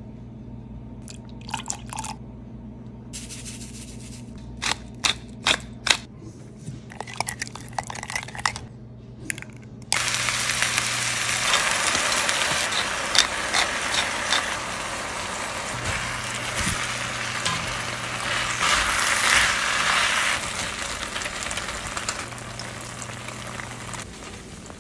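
Scattered small clicks and taps over a low steady hum; about ten seconds in, loud sizzling starts as beef, rice and corn fry on a hot pan.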